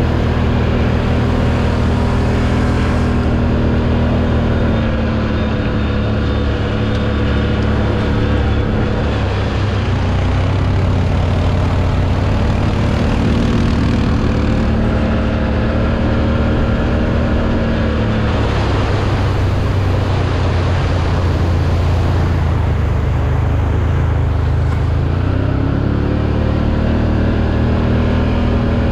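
Can-Am 1000's V-twin engine running while riding, its note rising and falling several times with the throttle over a dense low rumble.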